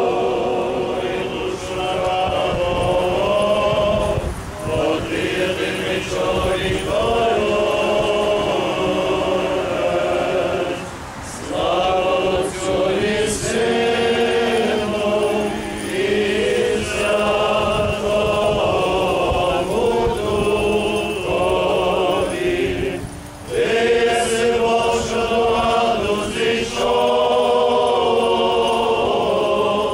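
A group of voices chanting a Ukrainian Catholic funeral hymn in long sung phrases, with short breaks between them. A few faint short high clicks come through in places.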